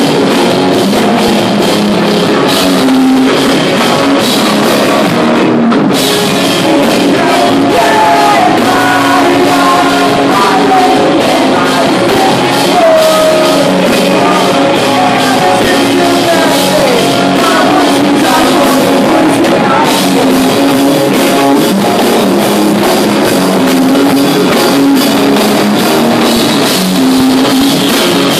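Pop punk band playing live and loud: electric guitars, bass and drums, with sung vocals over the middle part.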